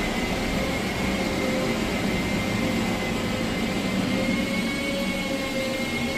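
A loud, steady mechanical whir with a thin high whine held over it.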